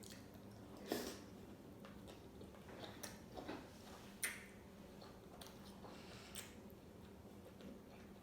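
Close-miked chewing of a big mouthful of seafood boil, with a handful of wet mouth smacks and clicks spread through it, the loudest about a second in.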